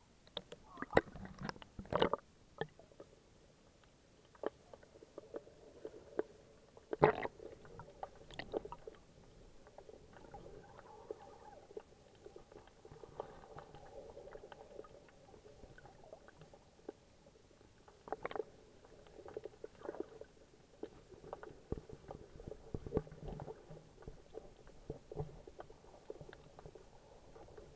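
Water sounds heard from inside an SJ4000 action camera's waterproof case: sharp splashes and knocks against the case as it goes under in the first couple of seconds, then a muffled gurgling murmur with scattered clicks and knocks, a louder one about seven seconds in and another near eighteen seconds.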